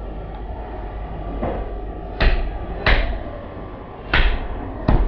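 Hatchet chopping pork on a wooden stump chopping block: a light knock, then four heavy chops about a second apart, starting about two seconds in.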